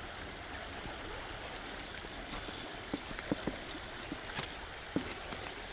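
Spinning reel ticking in quick runs of fine clicks, with a few sharper single clicks, while a hooked trout is being played on a light drag.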